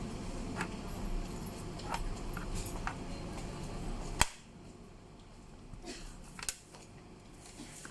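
Scattered small clicks and taps of plastic parts being handled and pried off a car stereo head unit, with one sharp loud click about four seconds in and a smaller one a couple of seconds later.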